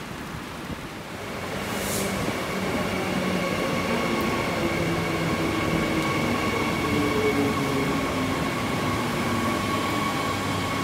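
Queensland Rail suburban electric train running past, its rumble growing louder about a second and a half in and then holding steady, with a steady whine over it. A short hiss comes about two seconds in.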